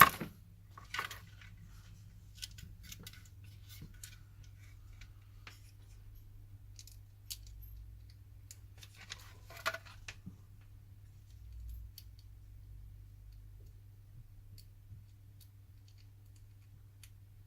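Small plastic clicks and taps from PS4 controller parts being handled and fitted together, scattered and sparse, with a louder cluster about ten seconds in, over a faint steady low hum.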